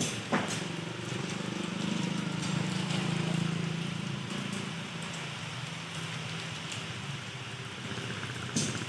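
Electric machine polisher running steadily on a headlight lens, a motor hum under a gritty, rain-like hiss, with a sharp click just after the start and another near the end.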